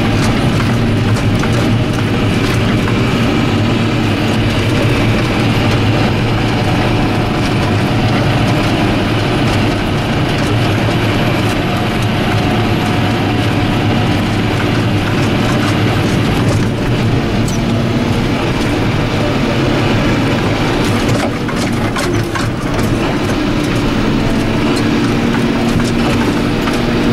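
John Deere 7530 tractor's six-cylinder diesel engine running steadily under way, its note drifting slightly up and down. A few short knocks or rattles come about twenty-one seconds in.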